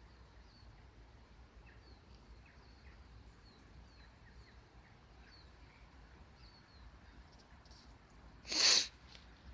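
A small bird chirping over and over in short falling notes, over a low steady rumble. Near the end comes one short, loud hiss of noise close to the microphone.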